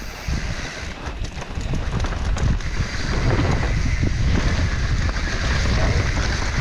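Wind buffeting the microphone and tyres rumbling over a clay dirt trail as a mountain bike descends at speed, growing louder over the first few seconds, with a few light knocks and rattles from the bike.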